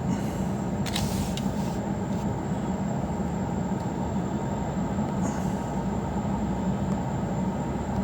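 Steady low rumble of a vehicle, with a brief hiss about a second in.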